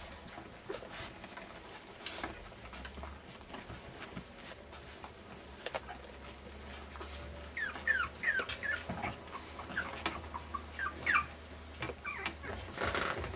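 French bulldog puppies, about three weeks old, whimpering: from about halfway through, a string of short, high squeaky cries that slide in pitch, coming thick and fast toward the end.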